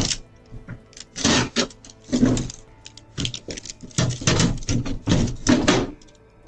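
Irregular metallic rattling and clattering, roughly two uneven bursts a second, picked up by a doorbell camera's microphone as mailboxes are forced open and rifled.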